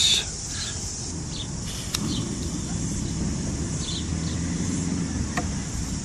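Steady high chirring of insects, with a low rumble that builds about two seconds in and holds.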